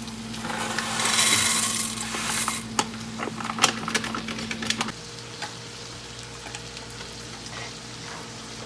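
Kitchen cooking sounds: a burst of sizzling in a hot pan for about two seconds, then a run of light clicks and clatters of a utensil against cookware, over a steady hum that shifts pitch about halfway through.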